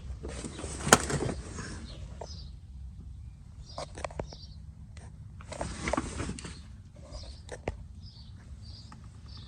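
Handling noise: scattered clicks and knocks, the sharpest about a second in, with brief rustling and shuffling in between.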